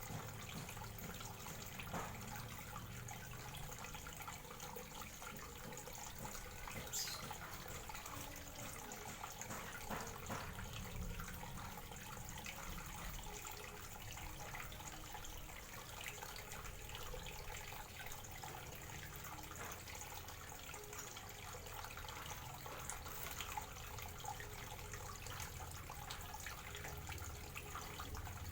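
Steady faint trickle of running water, with a few faint ticks scattered through it.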